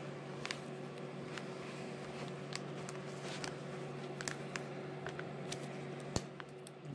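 Small metal pick scraping and ticking against a CR2016 coin-cell battery, its retaining spring and the plastic key-fob housing while levering the battery out, with a sharper click near the end as the battery comes free. A steady low hum runs underneath.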